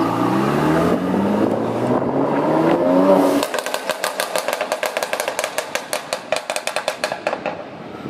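Renntech-tuned 2018 Mercedes-AMG C43's twin-turbo V6 exhaust accelerating hard away, its pitch climbing for about three and a half seconds. Then the throttle closes and the exhaust crackles and pops in a rapid, uneven string that thins out over about four seconds.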